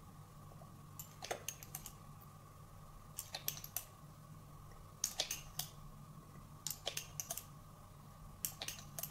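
Glass dropper pipette clicking against the glass of the dropper bottle and the small beaker as oil is drawn up and dripped in: light clicks in small clusters about every second or two, over a faint steady hum.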